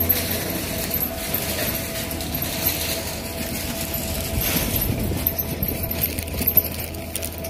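Loaded metal platform cart rolling over rough asphalt: a steady rolling noise from the wheels, with light metallic rattling and clicks from the frame.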